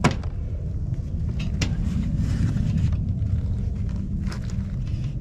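A few sharp plastic clicks and knocks as parts are fitted onto a replacement car radiator, over a steady low rumble.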